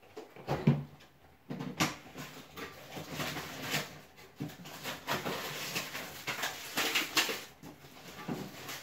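Off-camera rustling and irregular knocks of vegetables and their bags being handled. Two sharper knocks come in the first two seconds, then the rustling and light clatter run on almost without a break.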